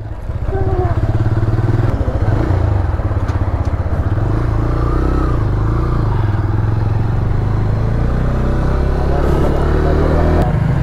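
TVS Raider 125's single-cylinder engine running as the motorcycle is ridden along, its low engine note shifting in pitch a few times.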